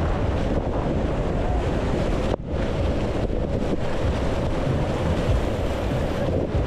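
Rushing whitewater churning around a canoe's hull, with wind buffeting the action-camera microphone. The sound cuts out for an instant about two and a half seconds in.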